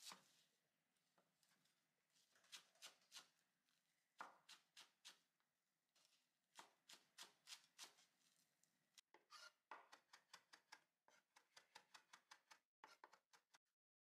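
Kitchen knife slicing a rolled bundle of green shiso (perilla) leaves on a wooden cutting board: short runs of crisp knocks, a few strokes at a time, coming quicker and closer together in the second half.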